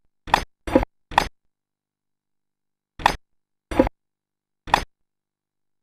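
Six blows landing on a large hand-held martial-arts striking target. Three quick hits come about half a second apart, then after a pause of nearly two seconds three more follow, each a short, sharp impact.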